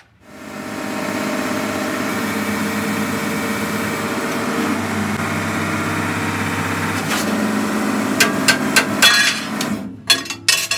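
Forging press running with a steady hum, then a run of sharp metal knocks and clanks near the end as hot steel is pressed and handled.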